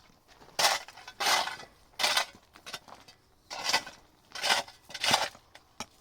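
A run of short, rough scraping strokes, about seven in six seconds, irregularly spaced.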